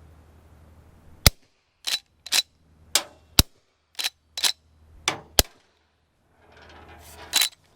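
Three suppressed .38 Special shots from a GForce LVR357 lever-action rifle with a Rugged Obsidian 9 suppressor, about two seconds apart. Between the shots are metallic clacks as the lever is cycled.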